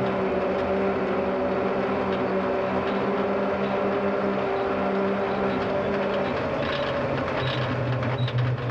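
Turbocharged side-by-side UTV's engine running hard at a steady pitch, dropping to a lower pitch about six seconds in. A few sharp knocks and rattles come near the end.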